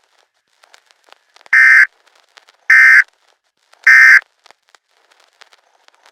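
Emergency Alert System end-of-message code: three short, loud bursts of warbling digital data tone, about a second apart, signalling that the alert broadcast has ended. Faint crackling clicks lie between them.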